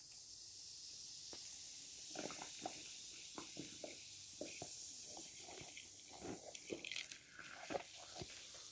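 Faint crackles and scattered small clicks over a light hiss from a plastic container of fizzing baking soda and vinegar mixture as it is tilted, the clicks starting about two seconds in and coming a few at a time.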